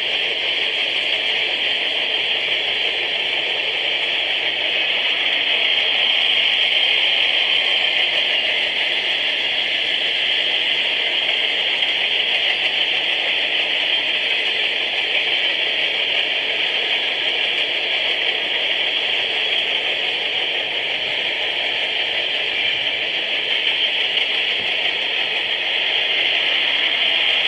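Freight train cars rolling past at steady speed: a continuous rushing noise of steel wheels on rail, picked up by a trackside webcam microphone.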